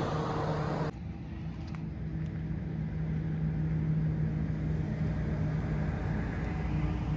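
A car running: a steady low engine hum with road noise, which drops suddenly and becomes duller about a second in.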